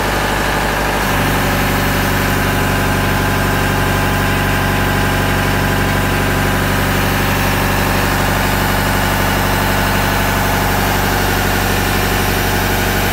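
Engine of an aerial work platform (personnel boom lift) running steadily while its boom is worked from the ground control panel. Its note changes and fills out about a second in, then holds steady.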